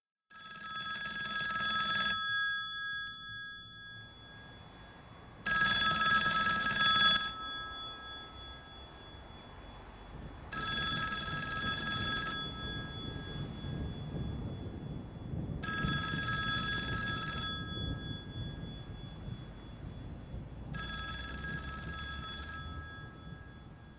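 Telephone ringing: five rings of about two seconds each, one every five seconds, over a low rumble.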